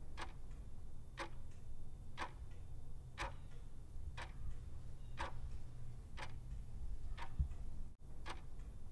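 Ticking-clock sound effect, about one tick a second, over a low steady hum, used as the thinking-time timer for a quiz question.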